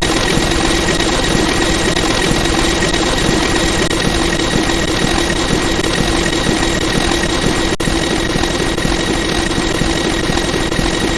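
Old iOS charging chime, drastically slowed and distorted into a loud, steady, noisy drone with a few held tones, dropping out for an instant about eight seconds in.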